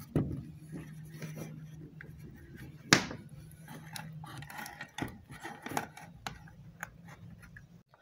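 Handling noises of a blender motor being reassembled: cloth rubbing, and scattered clicks and knocks of metal and plastic parts as the motor is set back into the plastic base. The loudest is a sharp knock about three seconds in.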